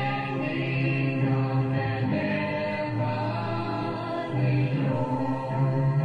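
Gospel song: a vocal group singing long held notes in harmony over instrumental backing.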